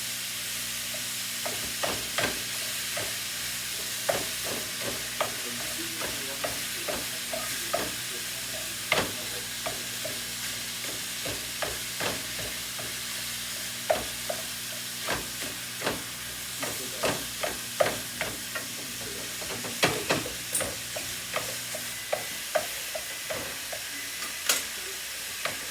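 Ground beef sizzling in a pan on high heat while a utensil stirs it, clacking and scraping against the pan at irregular intervals. A low steady hum runs underneath and stops near the end.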